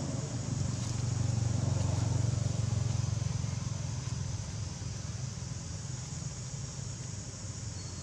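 Low engine-like rumble that swells over the first few seconds and then eases off, over a steady hiss.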